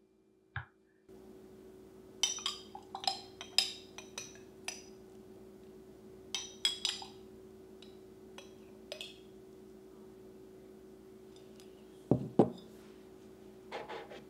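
Light clinks of glassware and dishes being handled, a dozen or so short ringing taps in clusters over the first nine seconds, then two duller knocks just after twelve seconds and a few more soft clinks near the end.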